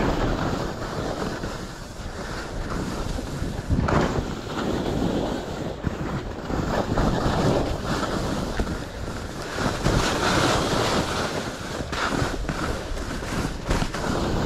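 Skis scraping and carving over packed, chopped snow, the noise rising and falling with each turn, with wind buffeting the microphone.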